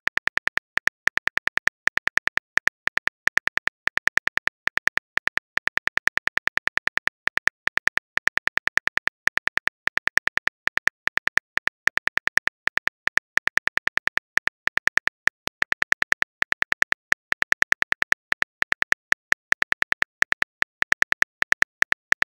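Smartphone keyboard typing clicks from a texting-app sound effect: a fast, even run of short identical taps, about five or six a second, with brief pauses.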